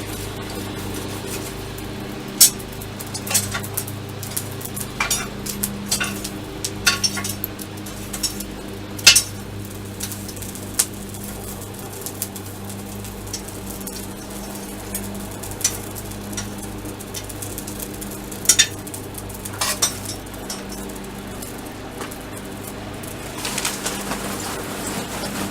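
Forge running with a steady hum while a forge-welding heat is taken on a fluxed steel billet. Irregular sharp metallic clinks sound over it, a dozen or so, spaced unevenly and not in a hammering rhythm.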